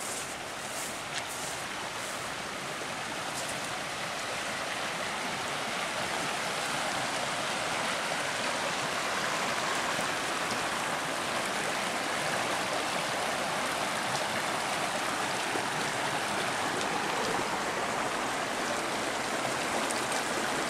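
River water rushing steadily, growing gradually louder through the first several seconds and then holding even.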